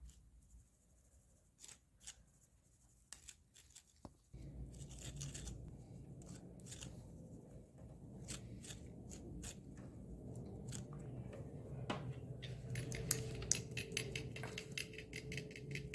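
Ground herbal powder being sifted through a sieve: scattered light taps and scratching of the mesh and powder. A faint steady hum comes in about four seconds in.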